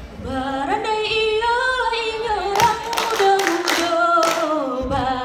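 A single voice singing a slow, ornamented melody without instruments, in the style of a Minangkabau song. About halfway through, four sharp claps sound over the singing.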